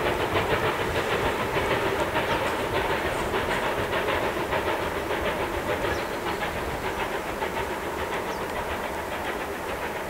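Ivatt class 2 2-6-0 steam locomotive 46512 working a train, its exhaust beating in a quick, even rhythm of chuffs with steam hiss. The sound fades gradually as the engine draws away.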